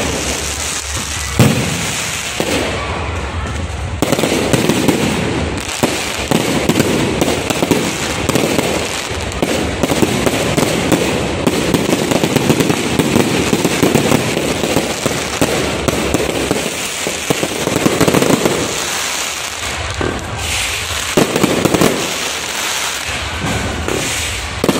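Fireworks display: many rockets going off together in a continuous, rapid barrage of bangs and crackling, with no pauses.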